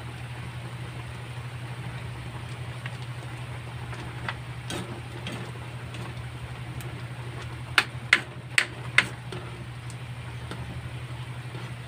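Metal spatula stirring in a wok of simmering curry, with a few light clinks, then four sharp knocks on the wok about half a second apart past the middle. A steady low hum runs underneath.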